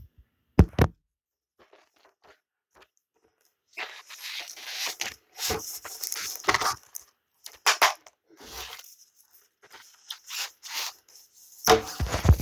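Blu-ray packaging being torn and crinkled open, in bursts of crackly rustling from about four seconds in, after a single low thump near the start.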